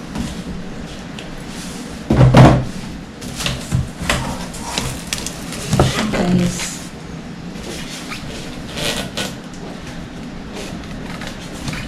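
Handling noises from unboxing a new microwave oven: scattered knocks, scrapes and rustles of cardboard and packaging. The loudest comes about two seconds in.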